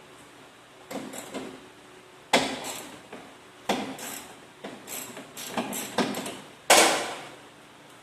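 Irregular knocks and clunks of parts and tools being handled while stripping down the engine bay, in small clusters, the loudest clunk near the end.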